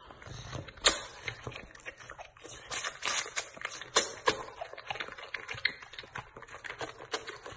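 White tiger cub suckling from a milk bottle's teat: an irregular run of quick clicks and smacks, several a second, as it sucks and chews.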